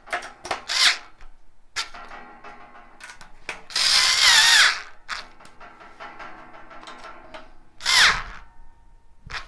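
Cordless screwdriver driving the screws that fix a steel linear guide rail to the frame. It runs in short spurts: a brief one near the start, a loud one of about a second near the middle with a wavering whine, and a shorter one near the end whose whine falls in pitch. Small clicks of handling fall between them.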